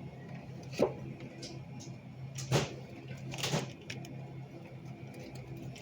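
Steady hum of store freezer cases, with three brief knocks about one, two and a half and three and a half seconds in.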